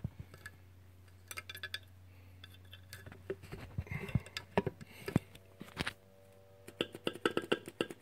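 Scattered small clicks and taps of wire spade connectors being handled and swapped on a 12 V electric horn's terminals, a check of the polarity of a horn that won't sound. A faint steady tone comes in about halfway through.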